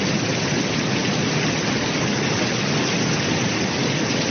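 Heavy rain pouring down onto a flooded road: a steady, even hiss.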